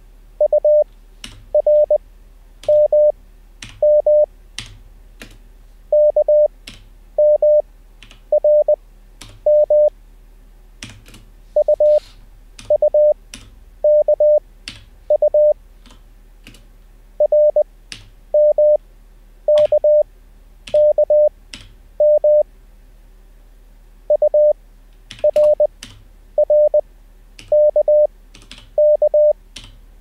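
Morse code practice tones at 600 Hz from LCWO's Koch-method course, each character sent at 20 wpm with wide Farnsworth spacing (5 wpm effective), about one character a second in five-letter groups with longer pauses between. Computer keyboard clicks come between the tones as the letters are typed out while copying.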